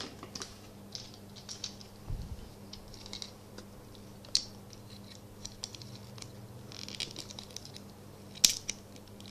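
Small plastic toy pieces handled by hand: light clicks and rattles as a Littlest Pet Shop monkey figure is fitted into its plastic toy race car, with a soft thump about two seconds in and a sharper click near the end.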